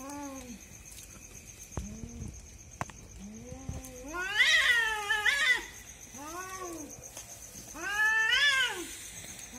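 Two cats caterwauling in a standoff: drawn-out yowls that rise and then fall in pitch, answering each other. The loudest are a long wail about four and a half seconds in and another near the end. This is the threat yowling that comes before or during a cat fight.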